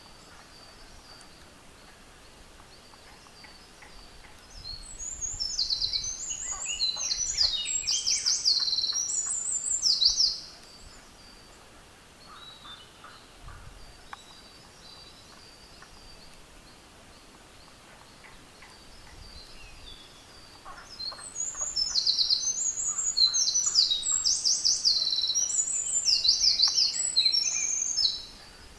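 Eurasian wren singing: two long, loud songs of rapid high trills and warbling notes, each lasting several seconds, the first starting about five seconds in and the second about twenty seconds in. Faint scattered high chirps fall between the songs.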